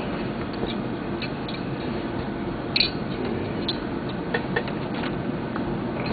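Scattered light clicks and taps of small metal engine parts being handled during assembly, the sharpest about three seconds in, over a steady background noise.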